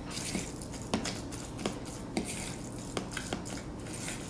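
A utensil stirring tuna and mayonnaise in a bowl: a soft, wet mixing noise with light, irregular clicks as the utensil taps the bowl.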